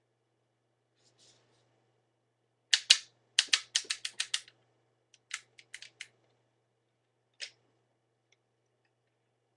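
Hard plastic Lego bricks clicking and clacking as a Lego-built Uzi is handled and laid down. There is a quick run of sharp clicks about three seconds in, then a few softer scattered clicks and one last click near the end.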